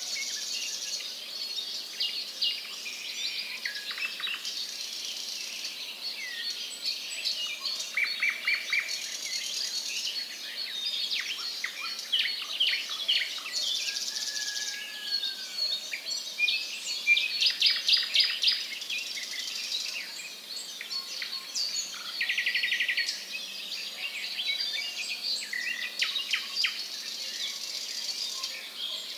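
Small birds chirping and calling in a busy chorus: many overlapping short chirps, rapid rattling trills and the odd clear whistled note.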